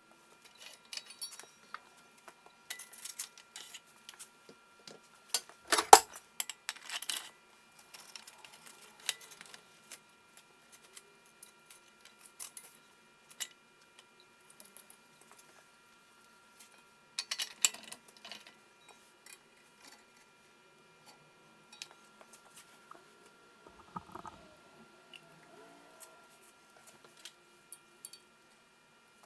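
Scattered light metallic clinks and clicks, as of small metal parts or tools being handled, with louder clusters about six seconds in and again near eighteen seconds. A faint steady high hum runs underneath.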